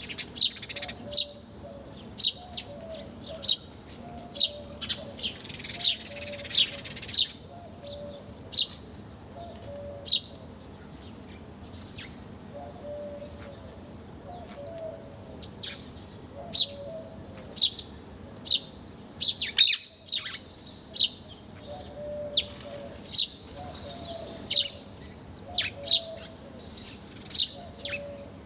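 Wild birds chirping: sharp, short high chirps about once a second, over a softer run of lower repeated call notes, with a brief rushing noise about six seconds in.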